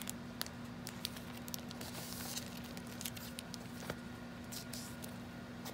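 Paper and plastic binder sleeves being handled: scattered soft ticks and a few brief rustles, about two seconds in and again near the five-second mark.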